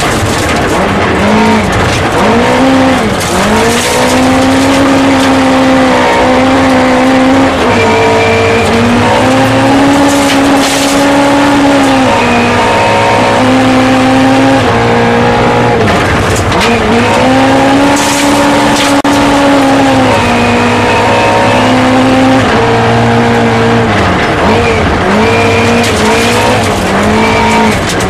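Rally car engine heard from inside the cabin at full throttle, its pitch climbing through the revs and dropping sharply again and again at gear changes and lifts, with a few short bursts of noise along the way.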